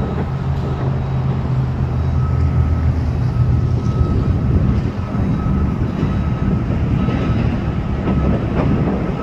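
Heavy diesel demolition machinery running steadily with a deep hum. A thin high beeping tone repeats in short dashes over it.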